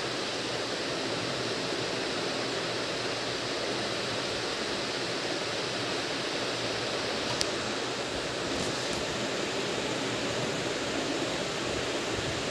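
Steady rushing background noise, like a fan running in the room. A sharp click about seven seconds in and two fainter clicks a second or so later come from a toy screwdriver working a plastic screw into a toy loader.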